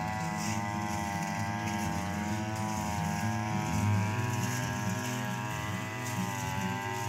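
Backpack brush cutter's small petrol engine running at high speed, a steady whine that wavers in pitch as it cuts through grass and dips briefly near the end.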